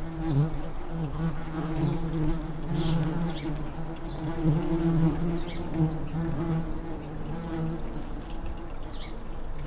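Tree bumblebees buzzing at the nest entrance: a steady low drone that wavers in pitch and strength, the sound of a bee fanning its wings to blow cool air into the nest.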